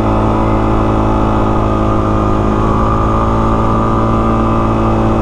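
Suzuki DR-Z400S single-cylinder dual-sport motorcycle engine running at a steady speed under way, its note held level throughout.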